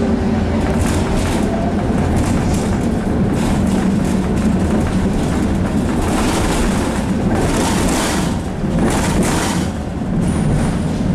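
Tram running along its rails, heard from inside the car: a steady low rumble from the wheels and running gear, with noisy bursts of rattle and hiss, the biggest about six and eight seconds in.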